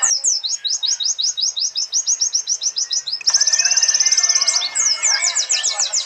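Several Zosterops white-eyes (pleci) singing. There is first a fast run of high, clear notes, about five a second. About three seconds in, the sound switches abruptly to a denser chorus, with a very fast high trill over other chattering calls.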